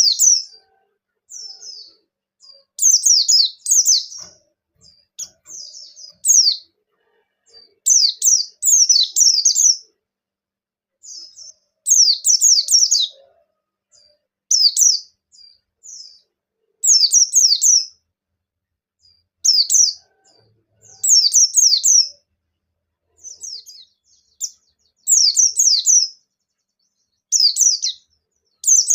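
Pleci bustomi white-eye singing in short, high-pitched bursts of fast chattering notes, roughly one burst every two seconds. The bird is in full song ('gacor'), as in a lure recording used to set other white-eyes singing.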